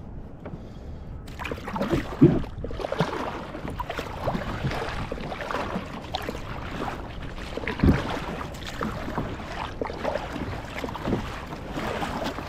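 A kayak being paddled: irregular splashing of paddle blades through the water starts about a second in, with a few louder thumps about two, eight and eleven seconds in.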